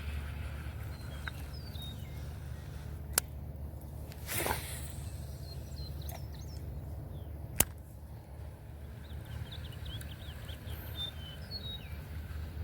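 Small birds chirping in short high calls, heard a few times, over a steady low wind rumble on the microphone. Two sharp clicks, the loudest sounds, come about three and seven and a half seconds in, with a brief swish between them.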